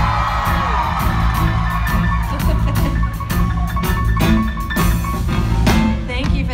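Live band vamping: drum kit keeping a steady beat over a sustained bass line and held keyboard notes.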